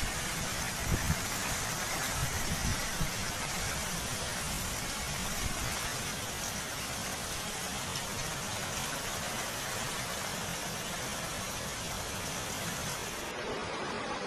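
Steady rushing hiss of heavy rain and fast-flowing floodwater, with a few low bumps on the microphone in the first three seconds.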